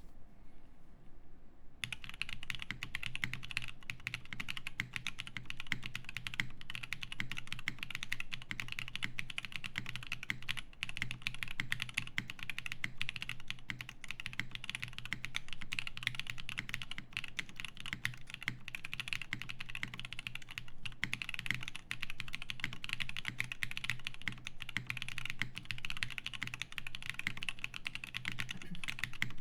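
Continuous typing on a Bauer2 SE custom mechanical keyboard with lubed Zaku switches, a polycarbonate plate and GMK Olivia keycaps, the dense key strokes starting about two seconds in.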